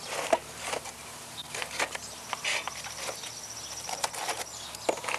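Metal barbecue tongs and a disposable aluminum foil pan clicking, rattling and scraping as the pan is set and shifted on a kettle grill's grate: scattered light clicks. A faint, steady high-pitched trill runs through the middle.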